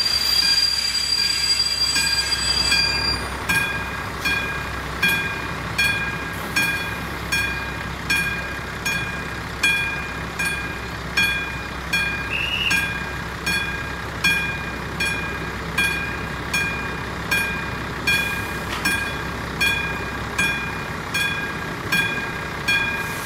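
Level-crossing warning bell, the classic striker type, ringing in even strokes a little over once a second, each stroke leaving a ringing tone. For the first few seconds it is covered by a train's running noise and squealing wheels, and a low steady hum runs underneath until near the end.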